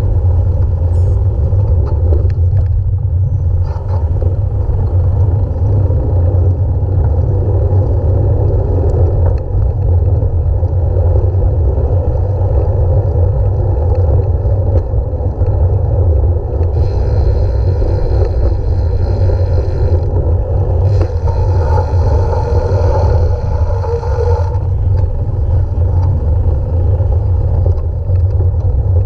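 Heavy, steady wind rumble on the microphone of a camera riding along on a bicycle. About two-thirds of the way in, a higher whirring sound with several steady tones comes in twice, for about three seconds each time.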